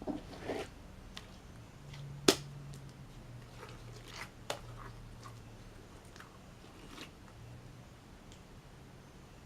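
Hand-kneaded slime making short wet squishes and sharp pops of trapped air, a few soft ones at the start, then separate pops, the loudest about two seconds in and another about two seconds later.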